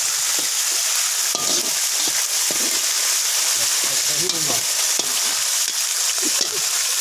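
Hot cooking oil sizzling steadily in a large pan, with a few sharp clicks of a ladle or utensil against the pan.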